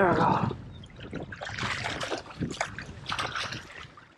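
Water splashing and trickling in irregular bursts as a pike is scooped into a landing net.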